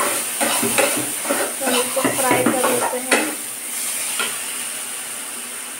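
A spatula scraping and stirring fish masala in a pan on an induction cooktop as it fries, with a steady sizzle underneath. Quick strokes run for about three seconds, then one more stroke, then the sizzle goes on alone.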